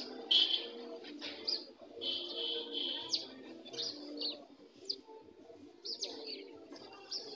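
Caged laying hens calling: many short high squawks, several sliding down in pitch, over a low steady murmur.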